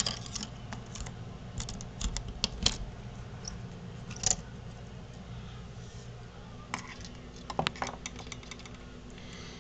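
Scattered light clicks and clinks of small faucet parts being handled and worked loose by hand, over a steady low hum.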